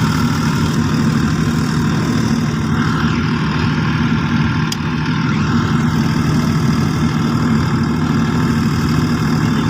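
Steady low electrical hum from powered workshop equipment, unchanging throughout, with one faint tick near the middle.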